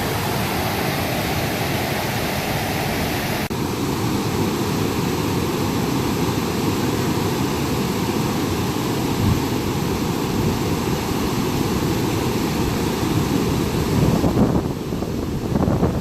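Steady rush of flowing river water, mixed with wind on the microphone, with a few louder gusts or bumps near the end.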